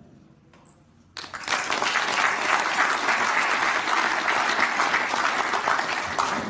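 Audience applause that breaks out suddenly about a second in, after a brief hush at the end of the music, and keeps up as steady, dense clapping before thinning out near the end.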